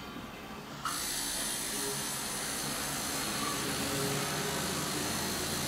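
Electric tattoo machine switched on about a second in, then buzzing steadily while its needle works into the skin.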